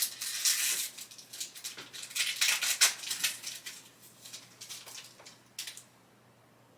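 Crinkling and rustling of a foil trading-card pack wrapper being opened by hand, busiest in the first three seconds, then dying down after one last sharp crackle about five and a half seconds in.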